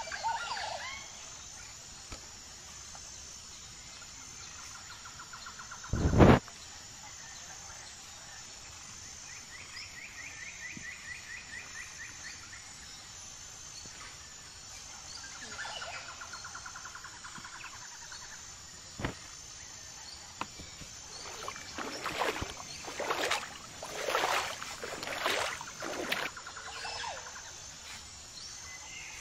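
Rural outdoor ambience: a steady high chirping throughout, with rapid trills coming and going. A single loud sharp thump comes about six seconds in, and a cluster of louder calls and noises comes near the end.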